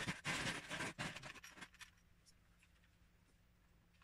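Paper rustling and scratching from a Lego instruction booklet being handled on a tabletop, dying away about a second and a half in. After that there is near silence with a faint low hum.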